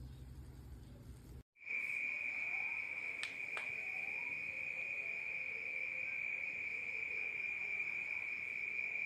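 A single steady high-pitched tone starts suddenly about a second and a half in, after a brief dropout, and holds unbroken, with two faint clicks near the middle.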